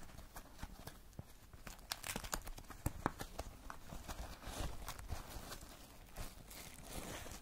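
Plastic packaging rustling and crinkling as a parcel is handled and unwrapped: a plastic mailer bag, a foam wrap and a clear plastic bag, with scattered small clicks and taps.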